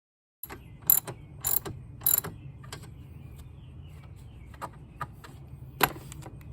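Ratchet wrench clicking in short strokes while tightening the car battery's hold-down bracket, a handful of sharp clicks spaced about half a second apart over a steady low hum.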